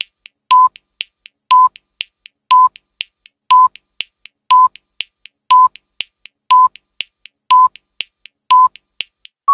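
Countdown timer sound effect: a short electronic beep about once a second, with faint ticking clicks between the beeps.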